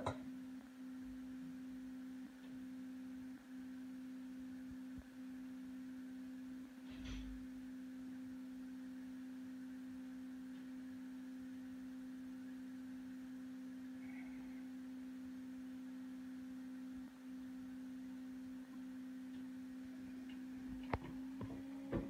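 A faint, steady low hum: one even tone with a fainter overtone above it. A soft knock comes about seven seconds in, and a few light clicks near the end.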